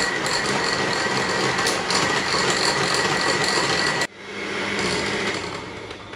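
Bosch electric hand mixer running steadily with a faint high whine, its beaters churning a thick mix of eggs, crushed walnuts and biscuit crumbs in a glass bowl. It cuts off suddenly about four seconds in, then runs again more softly.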